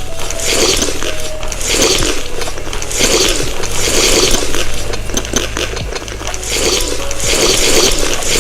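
Close-miked chewing of crunchy food, wet crunches repeating in a steady rhythm of about one every half-second to second, over a faint steady low hum.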